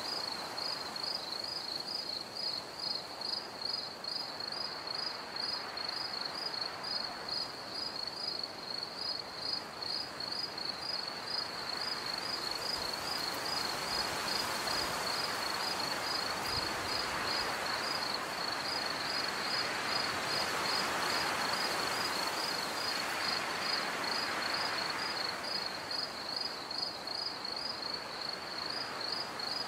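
Crickets chirping steadily, about two to three chirps a second, over a soft hiss that grows louder in the middle and then eases off.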